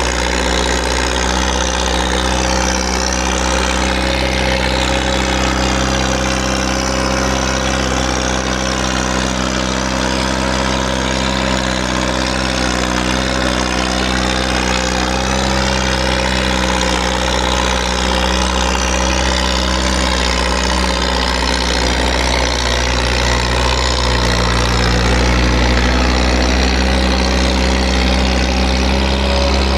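Skid steer engine running steadily at a constant speed, a little louder in the last few seconds.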